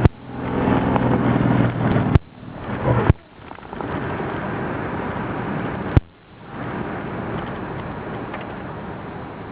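The supercharged V8 of a Ford SVT F-150 Lightning with a Kenne Bell supercharger pulls hard for the first three seconds. Sharp clicks each cut the sound briefly. After that the engine tone drops out and the sound turns to a steady rush of road and wind noise that slowly fades as the truck coasts off the throttle.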